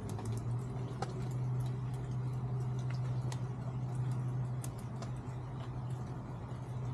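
Chickens feeding, their pecking heard as scattered light ticks, over a steady low hum that comes in just after the start.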